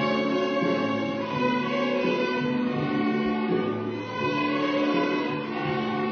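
Student string orchestra of violins playing, bowing sustained notes together that change pitch every second or so.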